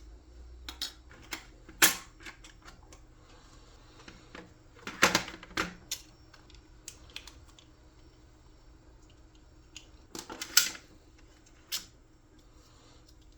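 Scattered sharp plastic clicks and clacks from the opened Nerf Mega XL Double Crusher blaster and its internal parts being handled, with the loudest clusters about five seconds in and again about ten and a half seconds in.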